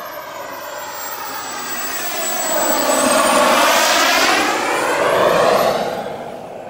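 Turbine engine of a radio-controlled Sebart Avanti S model jet making a close pass: a rushing jet noise with a high turbine whine that swells to its loudest about three to five seconds in, the whine rising and dipping in pitch, then fades away near the end.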